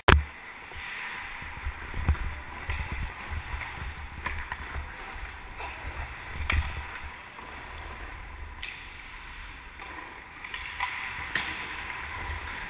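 Ice hockey skating heard through a helmet-mounted GoPro Hero 2: skate blades scraping the ice over a low rumble of irregular thumps from strides and helmet movement. A sharp, loud knock right at the start as a hand touches the camera, and sharper knocks now and then from the stick and puck.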